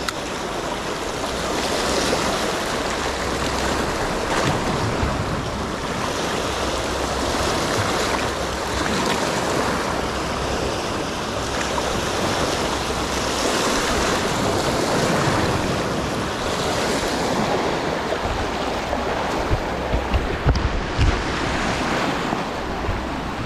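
Sea waves washing in, with wind buffeting the microphone. A few dull knocks near the end.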